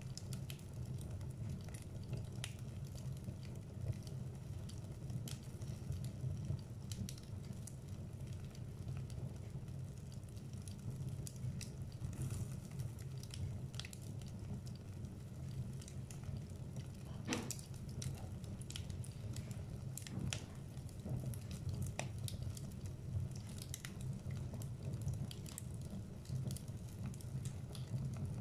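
Wood fire crackling in a fireplace: irregular sharp snaps and pops over a steady low rumble, with one louder pop a little past halfway.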